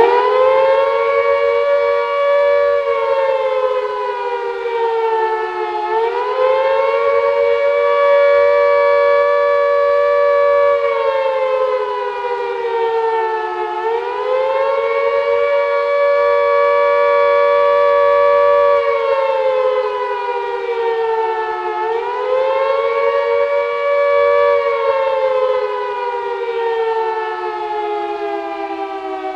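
Emergency-alert siren sounding a loud wail of two close tones. It reaches full pitch about a second in, dips and swoops back up about every eight seconds, and slowly winds down in pitch near the end.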